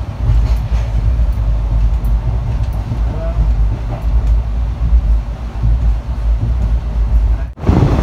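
Moving passenger train running, a steady low rumble heard from inside the carriage at the window. The sound stops abruptly a little before the end.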